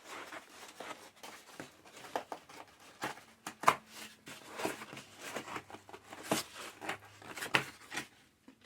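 Laptop packaging being handled and opened by hand: irregular rustling and scraping of cardboard and wrapping, broken by several sharp knocks and clicks.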